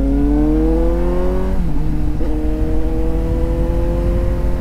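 Suzuki GSX-S750's inline-four engine accelerating under load, its pitch rising, then dropping at an upshift about a second and a half in before climbing again more slowly.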